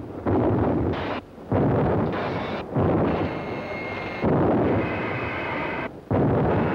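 Heavy artillery guns firing in a steady series: about five booms roughly a second and a half apart, each fading out in a rumble. A faint high tone sounds between some of the shots.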